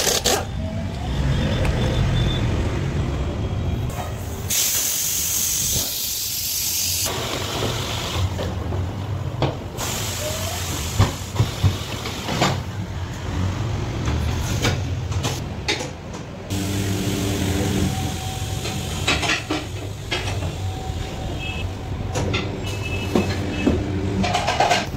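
Pneumatic tyre-changing work on a car wheel: compressed air hissing in loud bursts from the impact wrench and the tyre changer machine, over a steady low machine hum, with metal clicks and clanks of the tools and bead breaker.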